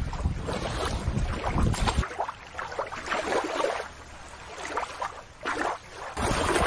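Wind rumbling on the microphone outdoors. It cuts off sharply about two seconds in to a quieter hiss without the rumble, and comes back near the end.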